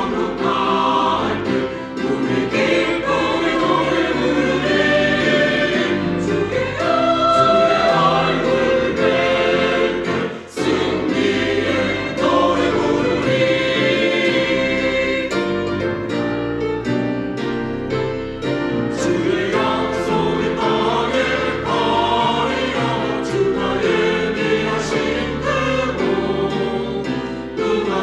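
Church choir singing a gospel hymn in parts with accompaniment.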